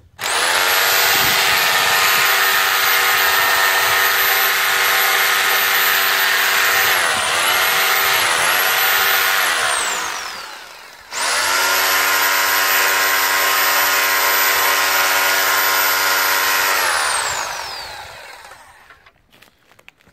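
Makita HR2470T 780-watt rotary hammer drill boring into old render and stone with an extra-long masonry bit, in two long runs of about ten and seven seconds. Its pitch dips twice under load partway through the first run, and each run ends with the motor winding down.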